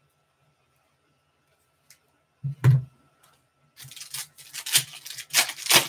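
A thump about two and a half seconds in, then the foil wrapper of a Panini Select basketball card pack being torn open and crinkled, with irregular rustling and crackling that grows louder toward the end.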